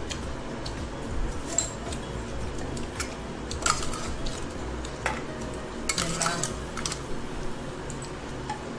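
Stainless steel plates and tumblers clinking now and then as people eat biryani off them by hand, with a small run of clinks about six seconds in.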